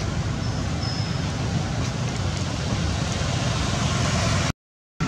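Steady low rumbling outdoor background noise with no distinct events. It cuts out to silence for about half a second near the end, then resumes.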